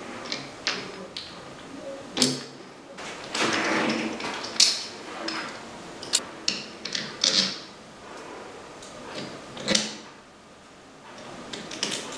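Irregular metal clicks, knocks and a short scraping rattle as tools and steering-head parts are handled while a motorcycle's yokes are fitted.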